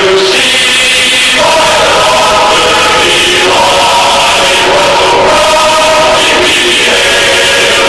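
Choir singing slow, held chords, loud, over a steady hiss.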